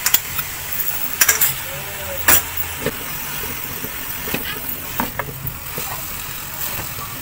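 Chicken and shredded vegetables sizzling in a steel wok as a spatula stirs them, with a steady hiss and sharp scrapes and clicks of the spatula against the pan every second or so.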